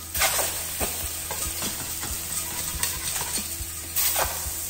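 Beef tenderloin steaks sizzling as they sear without oil in a stainless steel Saladmaster skillet, while a fork scrapes the pan and flips them. Sharp scrapes come about a quarter second in, near one second in, and again around four seconds in, over the steady sizzle.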